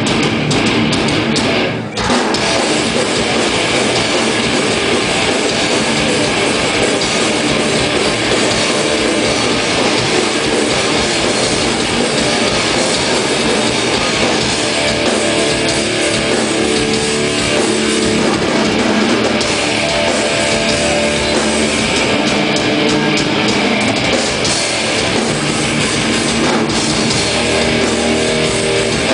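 A metallic hardcore band playing live and loud: distorted electric guitars over a pounding drum kit with cymbals, dense and unbroken apart from a brief dip about two seconds in.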